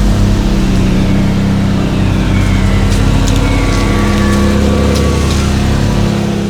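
Car engine running while driving, its pitch falling slowly over a few seconds as it eases off; the sound fades out near the end.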